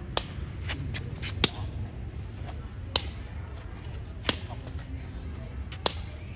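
Khmer shuttlecock being kicked back and forth: four sharp taps about a second and a half apart, with fainter taps between, over a steady low rumble.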